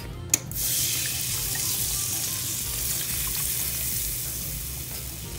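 Half-and-half poured into a hot browned butter-and-flour roux, sizzling. The sizzle starts about half a second in and slowly dies down.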